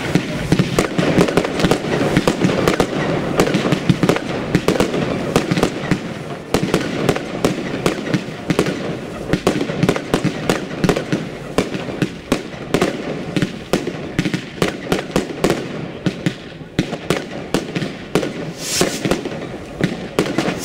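Consumer aerial fireworks going off: a dense, unbroken run of bangs and crackles as the bursts go off overhead, thinning a little in the second half.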